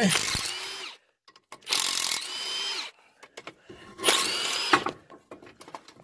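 Cordless impact gun run in three bursts of about a second each, backing out the three bolts that hold a Chevy Traverse's front wheel bearing hub assembly to the steering knuckle. Each burst carries a steady motor whine.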